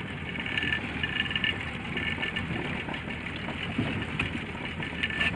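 Small fishing boat's engine running steadily at trolling speed, with the wash of water and wind around the boat.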